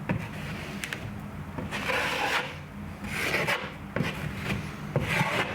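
Drywall knife spreading a thin coat of joint compound over a taped drywall patch: a few separate scraping strokes, about a second and a half apart, with light clicks between them.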